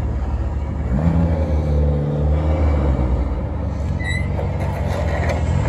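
Classic sports car engine running loudly, its revs climbing about a second in and again near the end.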